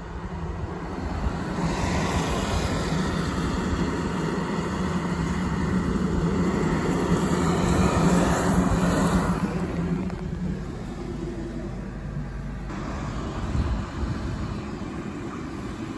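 A fire engine and a car driving past on a wet road: engine hum and tyre hiss build up, are loudest about eight seconds in, then fall away to a lower rumble.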